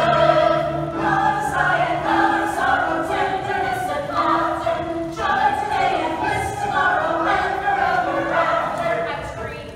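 Musical theatre cast singing together in chorus, with held notes that change every second or so; the singing eases off near the end.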